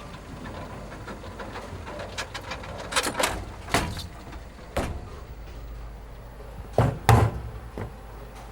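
A series of about six sharp knocks or thumps, irregularly spaced, the loudest pair near the end, over a steady low hum.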